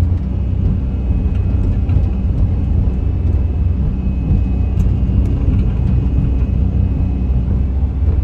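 Mini digger's diesel engine running steadily at a low rumble, heard from inside its cab, as the machine tracks slowly forward in low travel speed onto a trailer.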